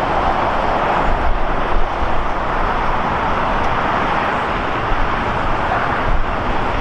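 Steady outdoor roar of airport and road traffic noise, with no distinct events standing out.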